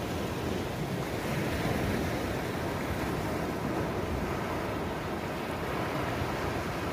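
Small surf breaking over low rocks and washing up a sandy beach, a steady rush that swells gently as waves come in, with wind buffeting the microphone.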